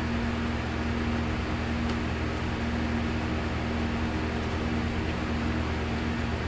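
Steady background hum and hiss of room noise, an even drone with a low fixed tone and no changes.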